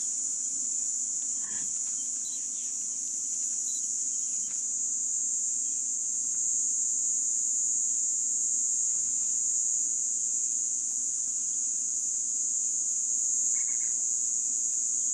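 Insect chorus in the bush, a steady high-pitched drone over a faint low hum, with two short calls, one about a second and a half in and one near the end.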